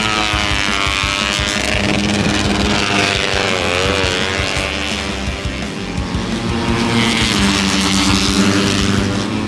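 Racing motorcycle engines at high revs passing by on a circuit, their pitch rising and falling as they sweep past. Music plays underneath.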